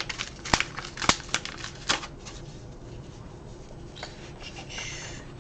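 A mailed package being opened by hand: several sharp clicks and taps in the first two seconds, then packaging rustling about four to five seconds in.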